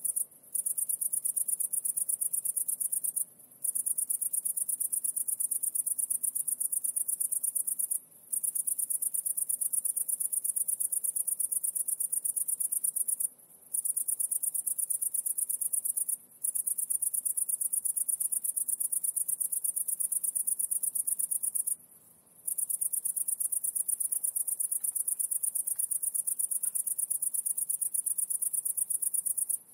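High-pitched insect trill: a fast, even pulsing buzz that stops briefly about seven times at uneven intervals.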